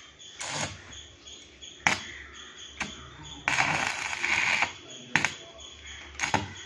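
Stick-welding electrode being struck against steel to start the arc, heard as a few sharp, separate crackles. About three and a half seconds in, the arc holds for about a second with a steady crackling sizzle while a tack weld is laid.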